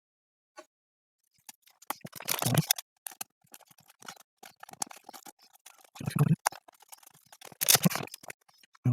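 Handling noise from the plastic casing and parts of a soundbar being reassembled: irregular clicks and scrapes, with heavier knocks about two and a half seconds in, about six seconds in and near the end.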